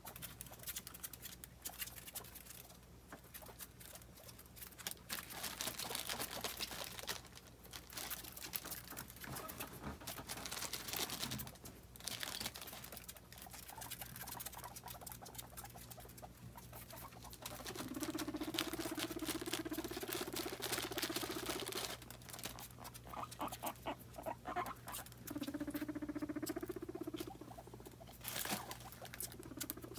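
Guinea pigs moving about on a wooden floor, a dense run of small clicks and rustles. Twice a guinea pig gives a low buzzing rumble lasting a few seconds, the first past the middle and the second near the end.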